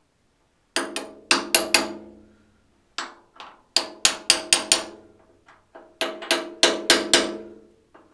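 Ball-pein hammer tapping on a press tool to drive a new halfshaft oil seal, by its metal casing, into a Massey Ferguson 35 rear axle housing. The blows come in three quick runs of four to six, each blow with a short metallic ring.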